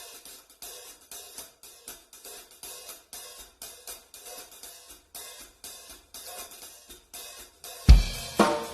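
A pair of 14-inch Meinl Soundcaster Custom hi-hat cymbals played alone in a steady, even rhythm, about two to three strokes a second. Near the end the full drum kit comes in with much louder bass drum and snare hits.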